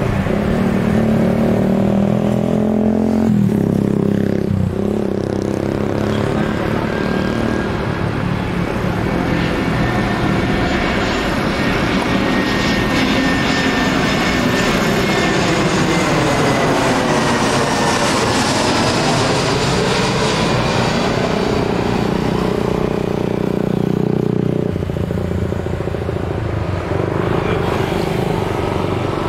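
Airbus A320-214's two CFM56 turbofan engines on landing approach passing low overhead. The jet roar builds from about eight seconds in, peaks around the middle with a sweeping shift in pitch as the aircraft passes over, and then fades away.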